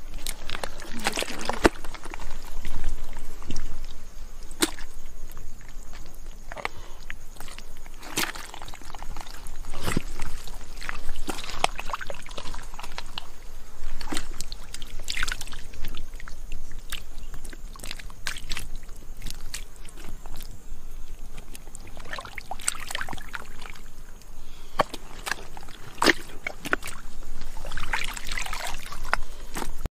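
Hands sloshing and scooping through shallow muddy water and wet mud, with irregular splashes and knocks.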